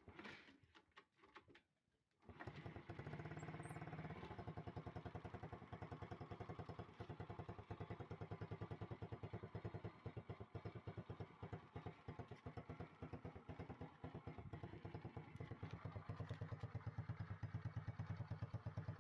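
Underbone motorcycle engine starting about two seconds in, then idling steadily with a fast, even beat, freshly filled with new oil.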